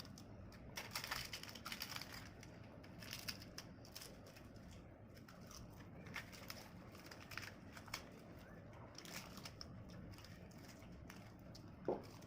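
Close-miked eating: chewing and crunching in short crackly bursts every second or two, with a sharp louder click near the end.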